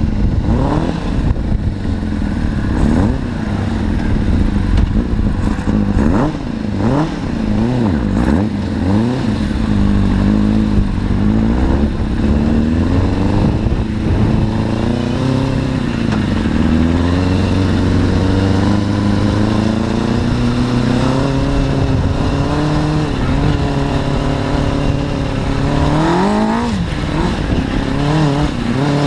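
Suzuki RF600 inline-four motorcycle engine in an off-road buggy, revving in a series of quick throttle blips, then pulling the buggy along at speed with its pitch climbing and dropping through throttle and gear changes. It is running on a freshly fitted set of RF600 carburettors that still need synchronising.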